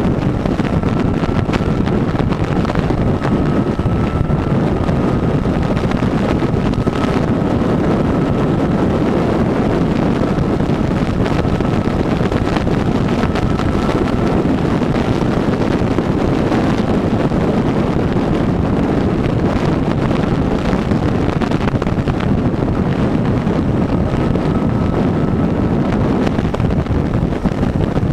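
Wind rushing over the microphone of a camera on a motorcycle riding at highway speed, with the steady drone of the Honda CB1000R's engine and tyres underneath. A faint steady whine comes and goes.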